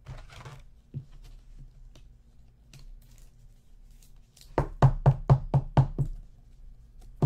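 A quick run of about eight sharp knocks on a desktop, roughly five or six a second, starting a little past the middle and lasting about a second and a half, as from hands tapping on the table.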